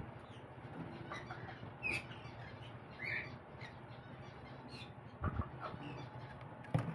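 Green-cheeked conure chicks making short chirps, the clearest two about two and three seconds in, with a few short knocks near the end.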